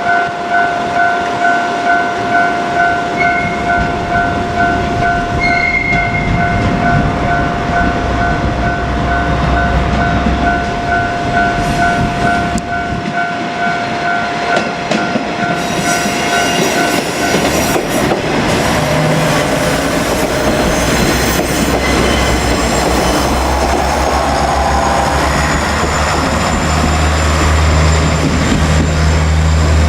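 Japanese level-crossing warning bell ringing in a fast repeating electronic ding, about two or three a second, that stops about 17 seconds in. Under and after it, a JR KiHa 47 diesel railcar runs past with rail noise and a low engine hum that grows louder near the end.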